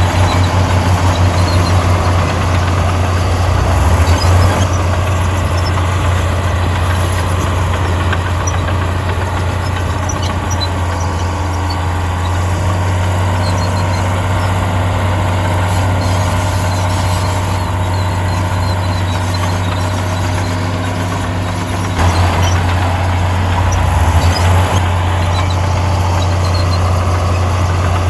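Diesel engine of a heavy earthmoving machine running steadily with a deep hum, its note and load changing about four seconds in and again about twenty-two seconds in.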